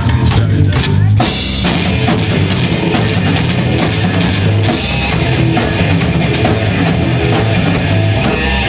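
A heavy rock band playing live: distorted electric guitars, bass and a drum kit. Sharp, regular drum hits stand out at first, and about a second in the sound thickens into a dense wall of guitar and cymbals.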